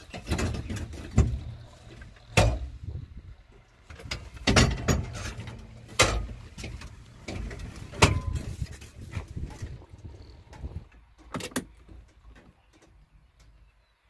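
Irregular clunks, knocks and rattles from the cab of a JCB backhoe loader as the seat and cab fittings are handled, with the sharpest knocks about 2.5, 6 and 8 seconds in. They thin out after about 12 seconds.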